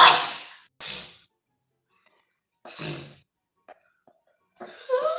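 A person sneezing repeatedly in a rhinitis attack. A loud sneeze comes at the start, a smaller one follows right after, another comes about three seconds in, and a longer voiced burst comes near the end.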